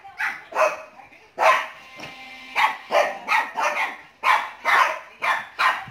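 Shih Tzu barking repeatedly in short, sharp barks, about two a second.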